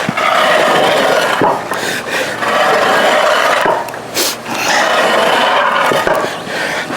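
Weighted sled scraping along the floor in a series of drags, each lasting a second or two with short breaks between pulls.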